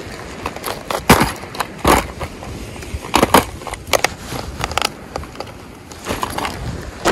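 Close handling noise of fishing gear and clothing: irregular knocks, clicks and rustles, the loudest about a second in, near two seconds and around three seconds.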